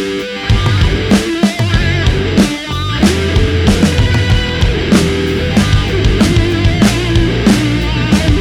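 Heavy-metal style rock music with drums, bass and guitar playing a steady beat.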